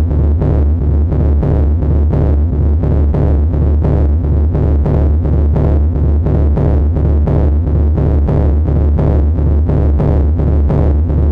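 Loud live electronic noise music: a heavy, low bass drone pulsing in a fast, even rhythm, with a harsh noisy layer above it.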